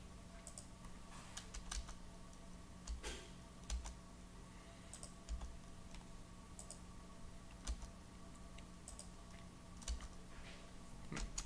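Sparse keystrokes on a computer keyboard: scattered single key presses and clicks, about one a second, over a faint steady low hum.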